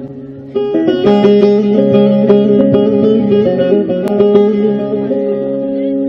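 Bağlama played solo in an instrumental break of a Turkish folk song: a softer held note, then from about half a second in a steady run of plucked notes.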